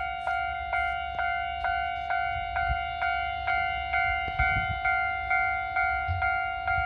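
Japanese railway level-crossing warning bell ringing steadily, about two strikes a second, each strike the same ringing tone.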